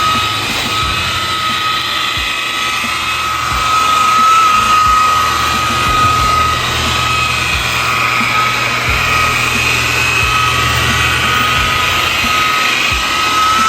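Electric polisher running steadily during paint buffing, with a constant high whine.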